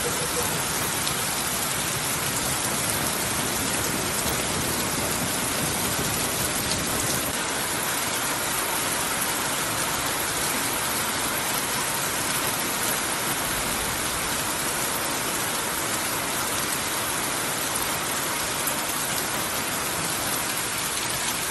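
Heavy monsoon rain falling steadily on a wet street: a dense, even hiss with no break.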